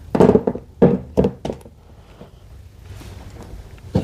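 Several thunks and knocks in the first second and a half as a tablet is propped upright on a tabletop and things on it are handled. Quieter handling follows, with one more knock at the end.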